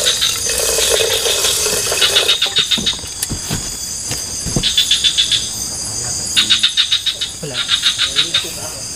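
A chorus of small calling animals: short trains of rapid clicking pulses, each under a second long, repeating every second or so over a steady high hiss.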